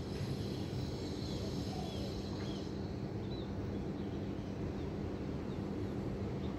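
Steady low rumble of city traffic heard from a rooftop, with a few short bird chirps scattered through it. A faint high hiss fades out a little under halfway through.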